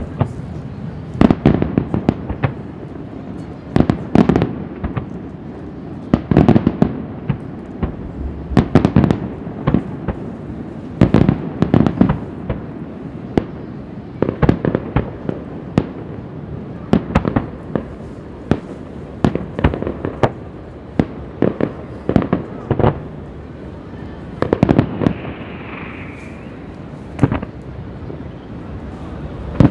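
Fireworks display: aerial shells bursting with sharp bangs, singly and in quick clusters, every second or two.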